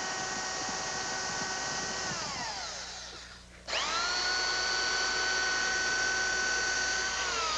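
Electric urethane dispensing gun, its drill motor spinning the dynamic mixer and pumping the two-part windshield urethane. The motor whine winds down and stops about two to three seconds in, starts again abruptly, runs steadily, and dips briefly near the end.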